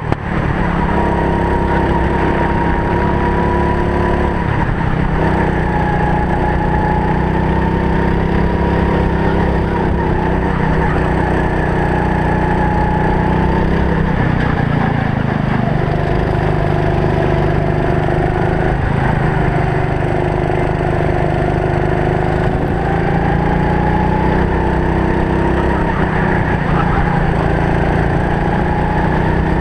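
Racing go-kart engine heard from a helmet camera, running hard with its pitch falling into corners and rising again on the straights, with a deeper slowdown and pick-up about halfway through.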